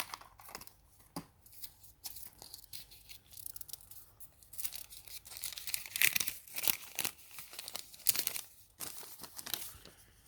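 Paper medicine-box leaflet being pulled out and unfolded: irregular crinkling and rustling of paper, loudest about six and eight seconds in.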